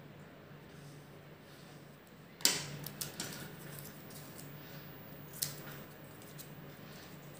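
Craft scissors and a marker handled on a glass tabletop: a sharp click about a third of the way in, then a few lighter clicks and taps, and another click about three-quarters of the way through as the scissors start cutting paper. A faint steady hum runs underneath.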